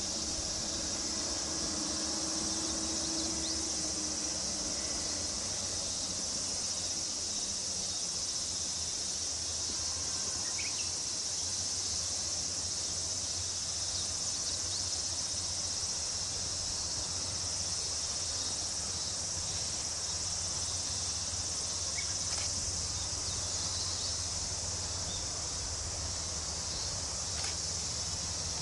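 Steady chorus of summer insects, a continuous high-pitched buzzing drone, with a low steady hum underneath.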